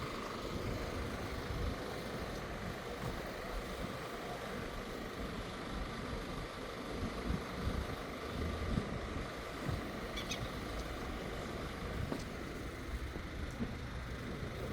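Steady hum of distant road traffic, with a few faint clicks and scuffs.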